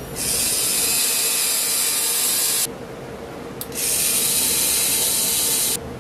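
3Doodler 3D pen's filament drive motor running in two high-pitched bursts of about two and a half and two seconds, feeding plastic through the hot nozzle to draw strands.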